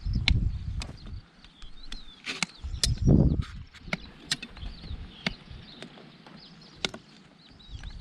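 Hoof trimming on a horse: about six sharp, irregular clicks of the trimming tools cutting hoof, with a heavier low thud around three seconds in.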